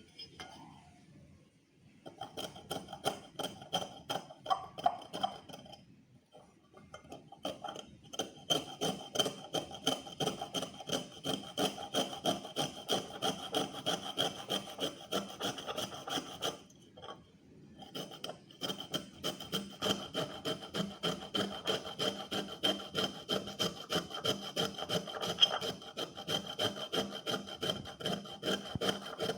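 Lemon being scraped up and down a hand grater in quick rhythmic strokes, about three a second, with a few short pauses.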